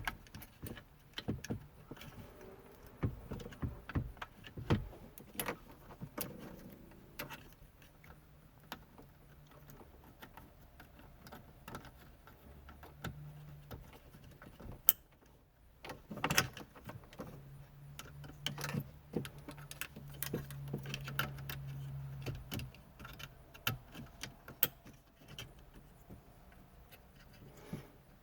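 Scattered small clicks and rattles of plastic wiring-harness connectors being handled and plugged into the back of a truck's replacement head-unit radio. A faint low hum runs for several seconds in the middle.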